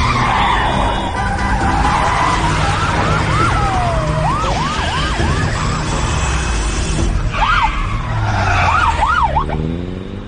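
Car tyres screeching in a run of short repeated squeals as a car skids and swerves, over loud engine and road noise, with car horns honking.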